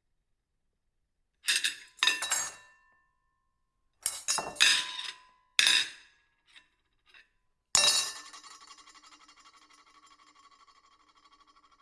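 Plates being moved and clinking against each other in several quick clusters of clinks. Near the end a louder clink leaves a plate ringing, its tone dying away slowly with a pulsing wobble.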